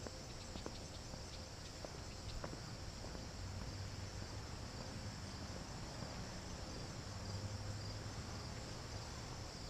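Steady, high-pitched chorus of insects trilling without a break. Light footstep clicks come in the first couple of seconds.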